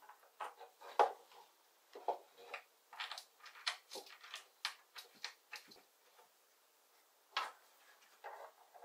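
Light clicks and taps of a small metal bolt being handled and fitted into a hole in a plywood jig, a sharper click about a second in, then scattered small knocks with a pause near the end.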